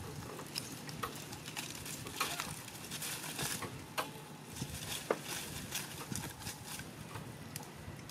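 Scattered light clicks and rustles, several a second at irregular spacing, over a low outdoor background, as macaques move about and handle food on rock and leaf litter.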